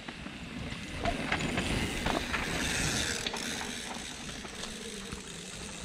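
Mountain bikes passing on a dirt trail: rear freehubs ticking as the riders coast downhill, with tyres rolling on the dirt. The sound swells as they come past around two seconds in, then eases off.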